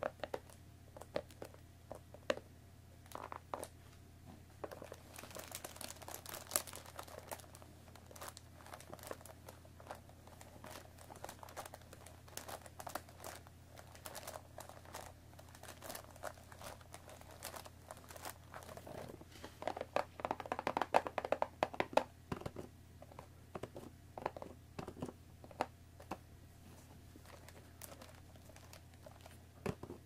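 Long fingernails tapping and scratching on a cellophane-wrapped cardboard tea box, with crinkling of the plastic wrap. The crinkling is loudest in a stretch about two-thirds of the way through.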